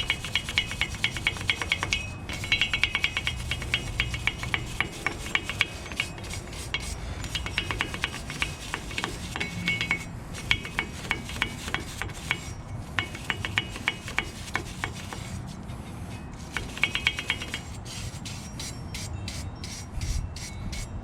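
Hand wire brush scrubbing corrosion off the face of a rusty wheel hub, in quick back-and-forth strokes that come in several bursts with short pauses between them.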